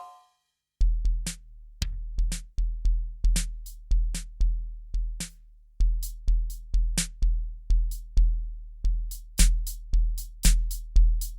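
Kurzweil K2000 synthesizer drum-kit program played from the keyboard, dry: a deep kick drum struck over and over with sharper, higher hits between. It starts about a second in, unevenly, and settles into a steady, quicker beat about halfway through.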